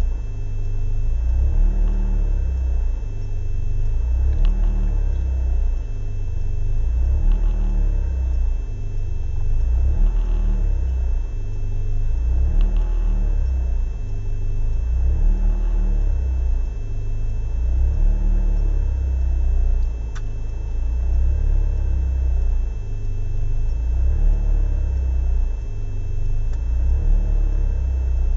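BMW M42B18 1.8-litre four-cylinder engine idling roughly, its speed hunting up and down in a regular surge about every two and a half seconds. The rough idle persists hot or cold despite a cleaned idle control valve and MAF sensor, and the owner does not know the cause.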